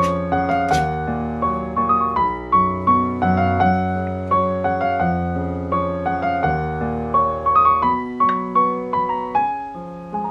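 Background piano music: a gentle melody of struck notes over sustained bass notes, with a couple of brief clicks near the start.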